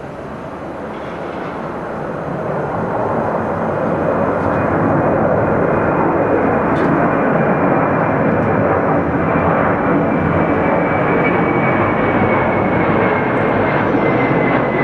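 Airbus A330 twin-engine jet airliner climbing out after takeoff. A steady jet roar grows louder over the first few seconds as the plane comes closer, with a high whine that slowly falls in pitch near the end.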